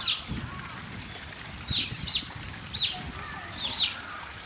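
Asian small-clawed otters calling: a series of short, high-pitched peeps, each falling in pitch, about six in all, some coming in quick pairs.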